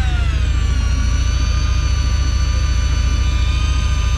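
Fishing boat's engine running: a steady low throb with a whine above it that slides down in pitch at the start, then holds steady.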